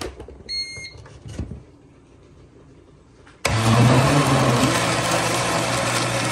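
A few quiet handling knocks, then about three and a half seconds in a countertop blender motor switches on suddenly and runs steadily, blending chunks of watermelon, garlic and lemon; its hum drops slightly in pitch about a second after starting.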